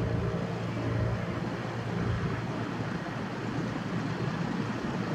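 Engine noise of a Cessna Citation X business jet's twin Rolls-Royce AE3007 turbofans as it climbs away after takeoff, a steady rushing noise heard from the ground.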